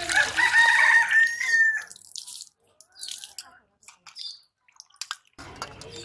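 Water gushing from an iron hand pump's spout into a steel bowl of fish pieces, with a rooster crowing loudly over it in one long call in the first two seconds. Then hands rubbing the fish pieces in the bowl with small splashes and clicks, and the water starts pouring again near the end.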